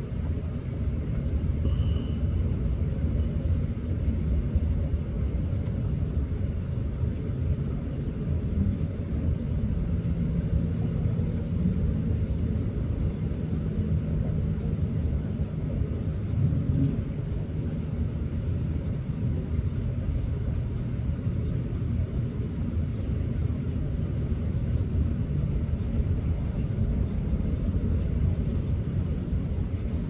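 Steady low rumble of distant engine noise outdoors, with a faint hum in the middle. A faint single bird chirp about two seconds in.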